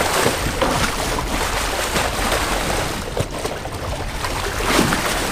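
Water splashing and churning as a hooked bull shark thrashes at the surface beside the boat, mixed with wind on the microphone. There is a single sharp knock about three seconds in.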